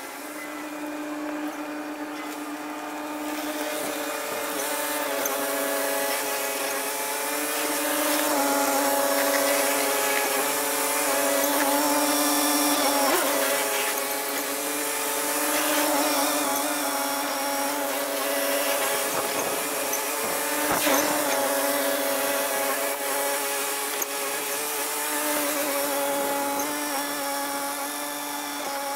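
Semi-truck's diesel engine running at low speed as the tractor-trailer inches across the icy lot, a steady droning whine that grows louder over the first several seconds as the truck comes close, with small rises and falls in pitch.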